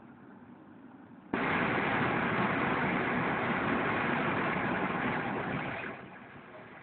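Sudden loud rush of sea water about a second in, as a wave breaks over the ship's bow and spray lashes the bridge window; it runs for about four and a half seconds, then fades back to a low steady rumble.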